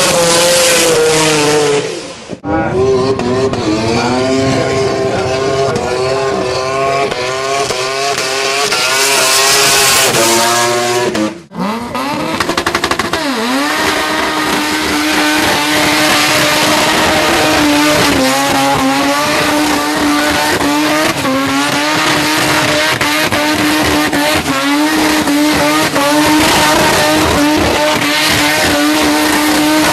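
Rotary (Wankel) engine cars running loud at high revs, in three separate recordings that cut abruptly about two seconds in and again about eleven seconds in. In the middle recording the revs rise and fall repeatedly and climb overall; in the last the engine holds a high, fairly steady pitch with small dips.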